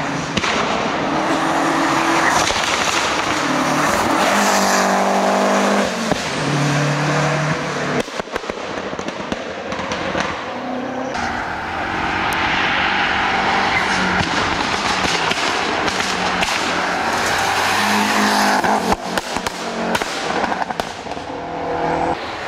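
Lancia Delta Integrale rally car's turbocharged four-cylinder engine driven hard uphill, the pitch repeatedly climbing and then dropping back with each gear change. Clusters of sharp cracks come about eight seconds in and again near the end.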